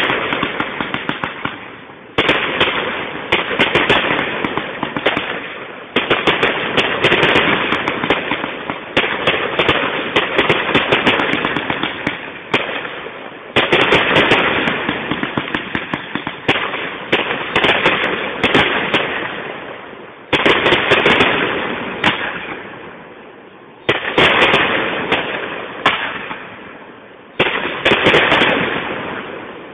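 Fireworks display: aerial shells bursting one after another, one every two to four seconds. Each burst is a sudden bang followed by dense crackling that fades away.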